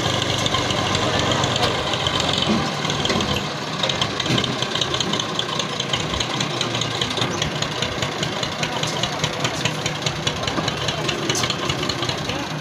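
Tractor diesel engine running with a fast, even beat. The deep hum thins out about three and a half seconds in.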